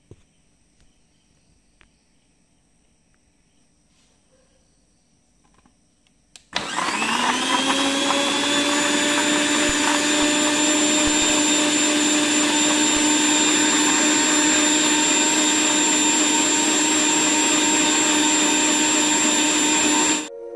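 Countertop electric blender (mixer-grinder) switching on about a third of the way in, whining up to speed within a moment, then running steadily as it blends apple in milk, and stopping abruptly near the end.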